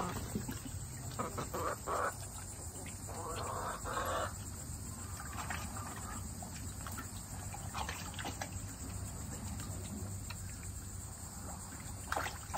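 Harsh bird calls: a short run of calls about a second in, then a longer, rougher one around three to four seconds, with fainter scattered calls after, over a steady chirring of insects.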